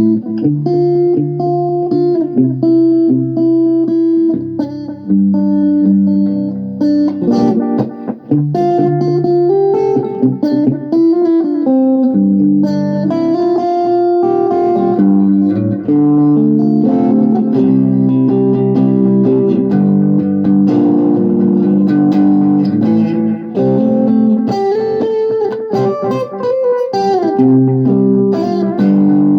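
Electric guitar played through a JOYO digital delay pedal: picked notes and chords that carry on and overlap, with the delay's repeats trailing behind them.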